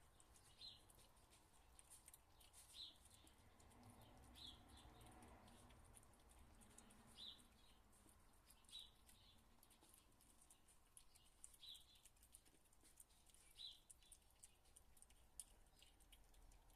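Faint, short high-pitched chirps from a small animal, about eight of them, spaced a second or two apart, with a little light ticking between them.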